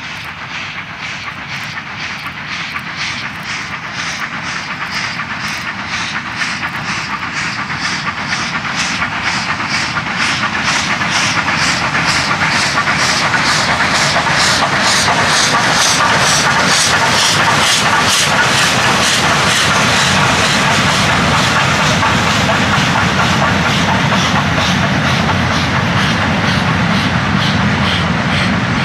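Garratt steam locomotive working a heavy train, its exhaust beating in a quick, even chuff that grows louder as it comes near and passes. After it passes, the rumble and clatter of the freight wagons rolling by.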